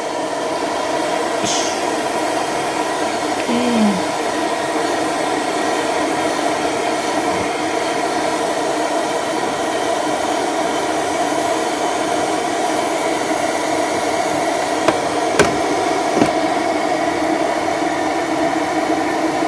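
Water boiling hard in the pot of a portable sauna steam generator, a steady rushing noise. Near the end come two sharp clicks as its plastic lid is fitted.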